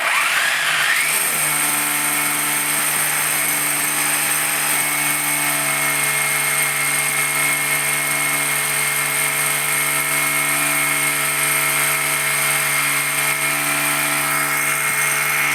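Electric drill running steadily at a constant speed, boring a hole for rebar.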